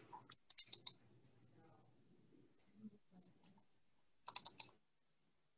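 Computer keys clicking in two quick runs of about four clicks each, one about half a second in and one about four seconds in, over a faint low murmur.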